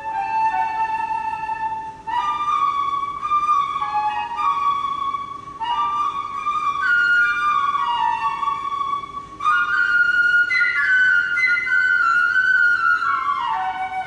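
Concert flute playing unaccompanied: a single melodic line of held and moving notes in its middle and upper register, in phrases broken by short pauses about 2, 6 and 9.5 seconds in.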